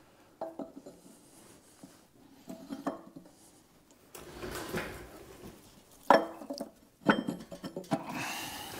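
Farmall H transmission input shaft assembly being pushed and worked by hand into the transmission housing: metal scraping and light clinks as the gears and bearing retainer seat, with two sharp metal knocks about six and seven seconds in.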